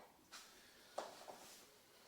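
Faint clicks and light knocks as the outrigger's metal bars and brackets are handled: one soft knock, then a sharper click about a second in with a softer one just after.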